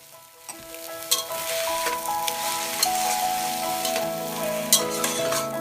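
Fried rice with peas and pineapple sizzling in a hot pan as it is stir-fried, with the spatula scraping and clicking against the pan. Soft background music plays under it.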